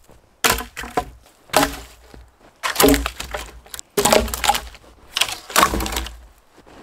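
Firewood logs dropped one after another onto a log pile, wood knocking on wood, about six sharp knocks roughly a second apart.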